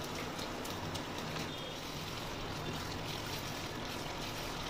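Spice paste and oil sizzling steadily in a frying pan as fried paneer cubes are tipped in and stirred with a silicone spatula, with faint crackles through the hiss.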